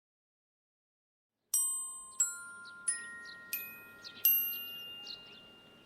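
Five bell-like chime notes, struck one after another at rising pitches about two thirds of a second apart, starting about a second and a half in; each note rings on and fades. Faint bird chirps sound between the notes.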